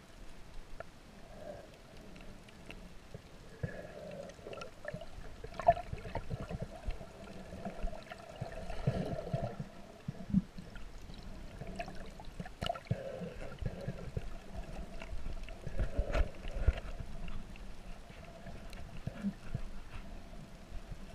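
Muffled underwater water movement and bubbling, heard through an underwater camera housing, with irregular low thumps and a few sharp knocks as swim fins kick and churn the water near the surface.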